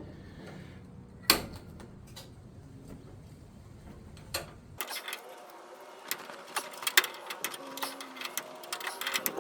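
Sharp knocks and clicks of tools working on a truck door hinge: one hard knock about a second in, and a quick run of clicks and taps in the second half.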